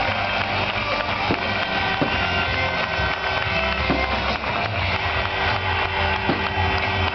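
Stadium music and dense crowd noise from a football crowd, with a few short sharp bangs.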